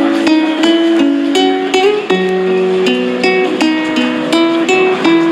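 Music on a plucked string instrument: a melody of quick, ringing notes with chords.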